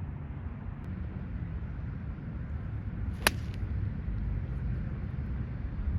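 One sharp click of a golf club striking a ball about three seconds in, over a steady low rumble of wind on the microphone.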